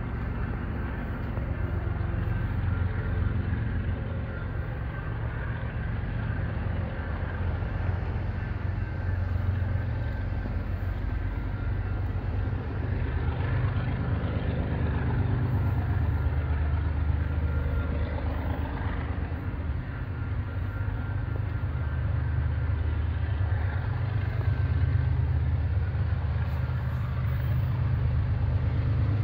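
Diesel locomotive of an approaching freight train, a steady low rumble growing slightly louder toward the end.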